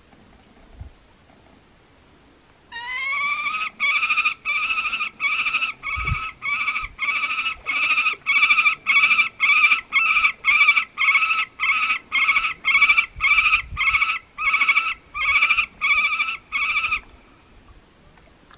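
Juvenile peregrine falcon calling: a long series of harsh repeated calls, about two a second, starting about three seconds in with a rising first note and stopping near the end.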